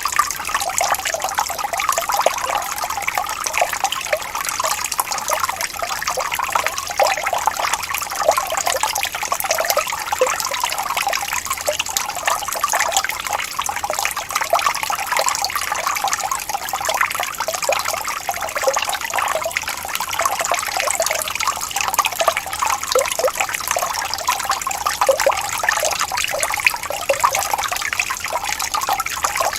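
Running water trickling and splashing steadily, a dense stream of small splashes with no let-up.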